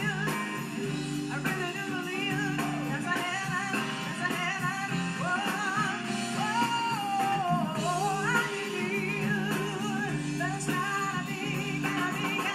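Live song: women singing with vibrato over a hollow-body electric guitar and an electric bass, heard through a television's speakers.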